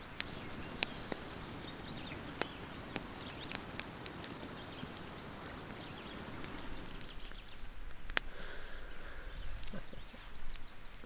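Quiet outdoor ambience: a soft steady hiss with scattered sharp clicks and ticks, the loudest about eight seconds in.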